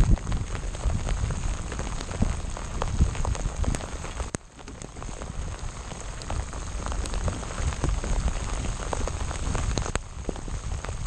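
Rain pattering in many small ticks, over a low rumble of wind buffeting the microphone.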